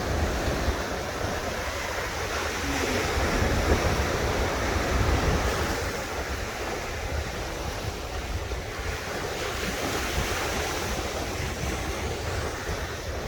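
Sea waves breaking and washing up a beach, a steady surf wash that swells louder a few seconds in, with wind rumbling on the microphone.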